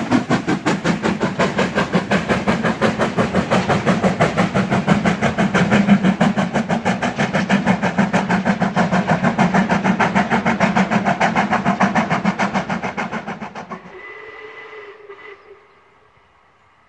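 Steam-hauled passenger train running past and away with a fast, even rhythmic beat, fading over a couple of seconds and then cutting off about fourteen seconds in. What follows is much fainter.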